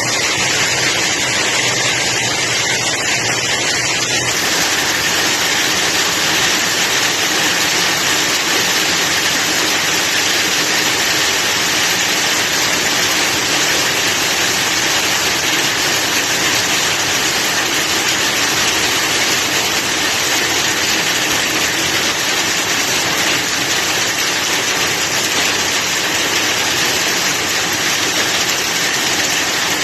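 Steady loud rushing of water, an even noise with no pitch, changing slightly about four seconds in.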